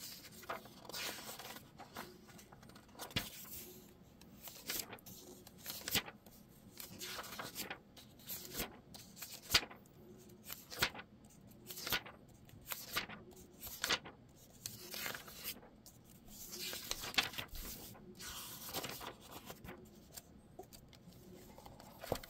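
Glossy paper pages of a hardcover graphic novel being turned one after another, each turn a short rustle or flap, about one every second.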